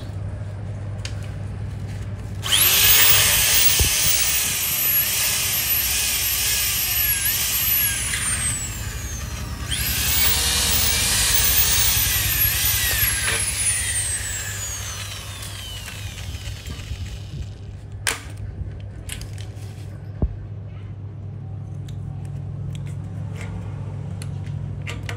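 Corded electric drill boring through aluminium profile in two long runs. The motor's whine sags and recovers again and again as the bit bites. Later come a few sharp clicks over a low steady hum.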